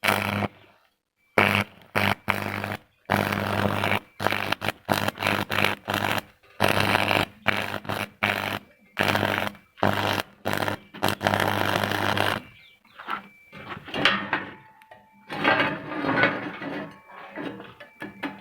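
Electric arc welding: the arc crackles and buzzes with a steady electrical hum, struck in a run of bursts that start and stop, some brief and some lasting a second or two.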